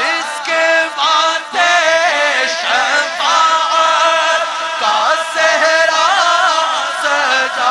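Islamic devotional chanting as background music: male voices singing a wavering, ornamented melody, with no beat.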